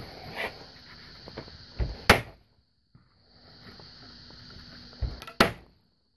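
Small diagonal cutters working at a flat steel packing strap on a cardboard carton: two sharp metallic snaps about three seconds apart, each just after a softer knock, as the jaws bite and slip without yet cutting through the tough strap.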